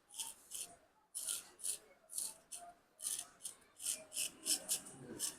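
A barber's blade cutting hair in short, quick rasping strokes. There are about two strokes a second at first, quickening to about four a second in the second half.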